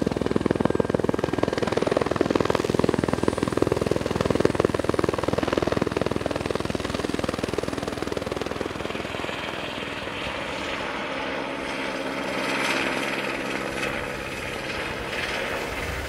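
Helicopter rotor chopping, a dense rapid beat. After about ten seconds it gives way to a quieter, steadier hum with a few even tones.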